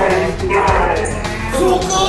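Background music playing loudly, with a steady low bass line.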